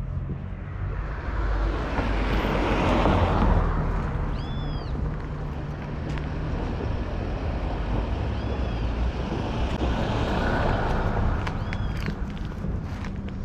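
Street traffic: one vehicle passes a few seconds in and another later on, over a low steady hum. A short high chirp comes about every four seconds.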